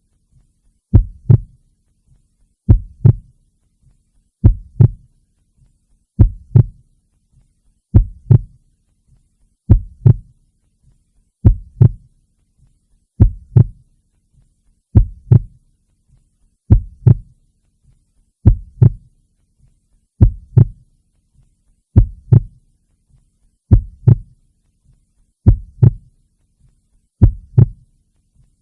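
Heartbeat: a slow, steady double thump (lub-dub), one pair about every second and three quarters.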